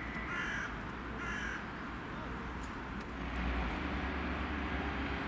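A crow cawing twice in the first couple of seconds. About three seconds in, a steadier, louder rumbling noise sets in: a Talent 2 electric multiple unit approaching.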